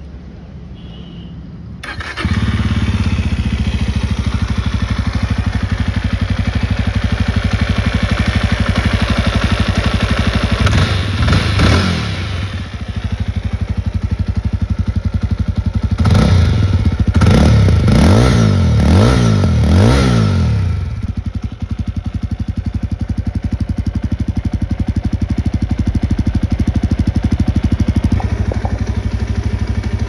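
Jawa 42 motorcycle's single-cylinder engine starting about two seconds in and settling into a steady idle through its stock exhaust. It is revved once a little before the middle, then blipped several times in quick succession just past the middle, each rev rising and falling, before dropping back to idle.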